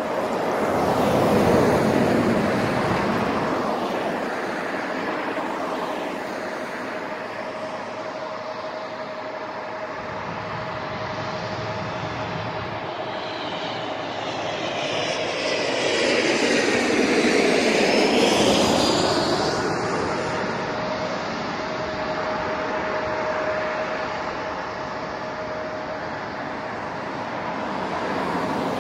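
Jet airliner engines heard across the airfield: a steady rumble with a constant whine that swells twice, briefly about a second in and again around the middle, rising and then falling away like a pass.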